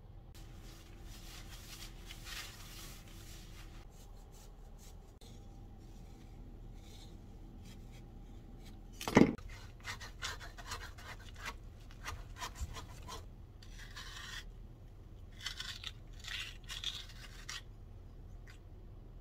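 Watermelon prep: a soft rubbing of hands over the melon's rind, one loud thud about nine seconds in, then a chef's knife cutting through the rind in short, irregular scraping strokes.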